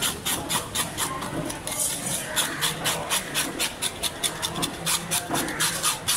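Fish being descaled by hand: a blade scraping rapidly and rhythmically against the scales, about five strokes a second.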